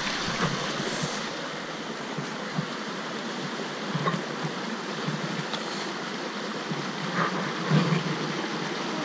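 Creek water running over rocks in a small cascade: a steady rushing. A few brief, soft knocks come about four seconds in and again near the end.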